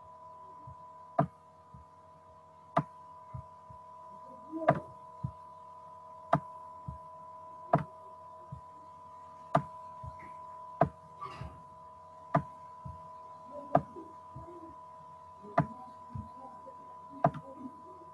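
Sharp single computer-mouse clicks about every second and a half, over a steady electrical hum.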